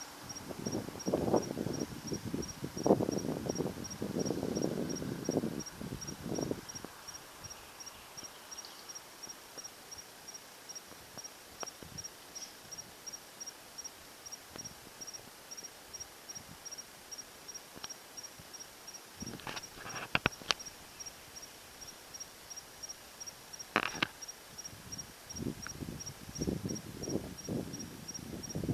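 A cricket chirping at an even pace, about two short high chirps a second. Irregular louder rustling noises come and go over it, in the first several seconds and again in the last third.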